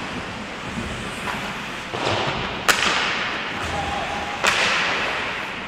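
Ice hockey play in an indoor rink: skate blades scraping the ice, with two sharp cracks of stick and puck, the louder about two and a half seconds in and another near four and a half seconds.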